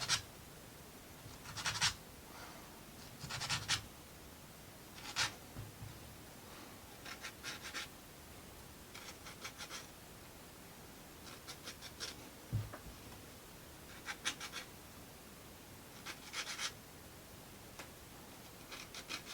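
Plywood parts of a wooden model kit handled and fitted together: short, scratchy scrapes every second or two, with a soft knock about twelve seconds in.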